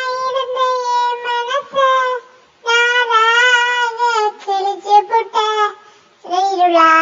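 Dog howling in long, wavering held notes, three drawn-out howls with short breaks between them.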